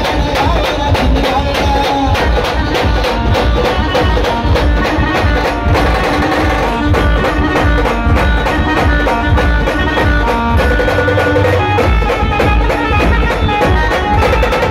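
Loud Khandeshi pavri-style band music pumped through a truck-mounted loudspeaker rig: a fast, steady drum beat with a melody line carried over it.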